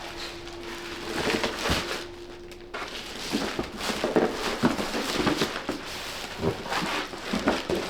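Rustling, crinkling and irregular light knocks from furniture parts and packaging being handled during flat-pack assembly. A steady hum runs under it at first and stops about three seconds in.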